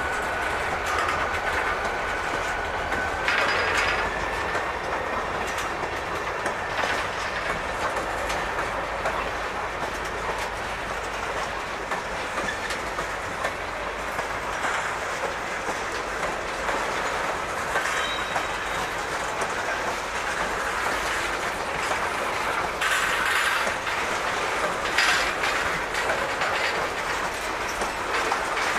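Freight cars of a mixed freight train rolling past: first a covered hopper, then a string of tank cars. The steel wheels clack steadily on the rails with scattered knocks, and a thin wheel squeal sounds for the first few seconds.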